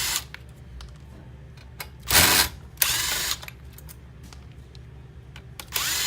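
Cordless power screwdriver running in four short bursts, backing out the screws that hold a circuit board; the loudest burst comes a little after two seconds in. Light clicks of handling sound between the bursts.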